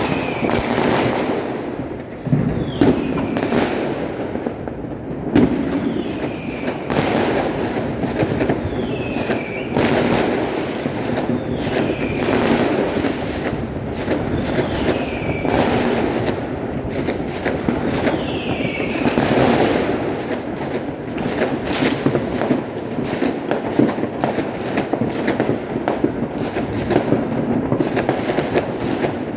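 Fireworks and firecrackers going off nonstop: a dense stream of bangs and crackles. Short falling whistles recur every couple of seconds.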